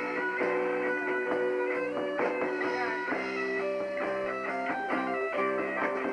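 Rock band playing live, an instrumental passage with no singing: electric guitar over long held chords.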